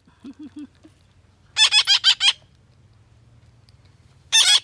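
Young parrots calling in two quick bursts of about six harsh, high squawks each, the first about a second and a half in and the second near the end, with three short low notes about half a second in.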